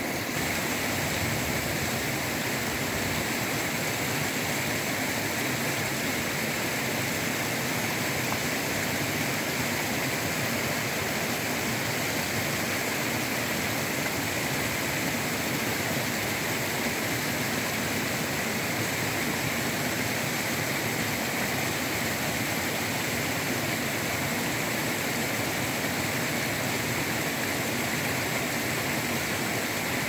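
Partly frozen waterfall, its water pouring down between ice and snow-covered rocks: a steady, even rushing.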